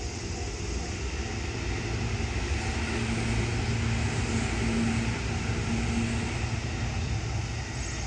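JR 205 series electric train passing, its rumble and motor hum building to a peak in the middle and easing off toward the end. A level-crossing bell keeps ringing underneath, about twice a second.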